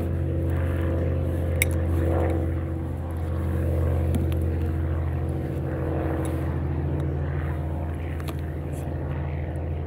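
Airplane engine droning steadily: a constant low hum of several steady tones, with a few faint clicks.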